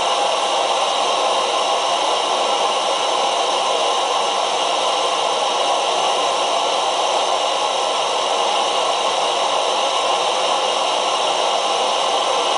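Primus EtaPower MF stove burning canister gas at a steady flame: an even, unbroken hiss from the burner, with a pot of water on it nearing the boil.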